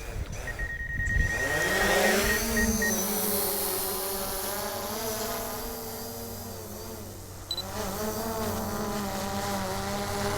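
DJI Mavic Pro quadcopter's propellers spinning up for take-off, the buzz rising in pitch about a second in, then running steadily in flight, with a brief dip and recovery in pitch about seven seconds in.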